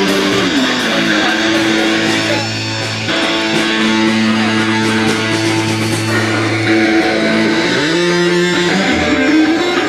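Rock music led by electric guitar playing long held notes with pitch slides, down near the start and up near the end, over a bass line.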